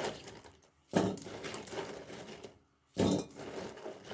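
Handfuls of washed, wet pine cones dropped into a cooking pot, clattering with a splash of water: two sudden bursts about two seconds apart, each fading quickly.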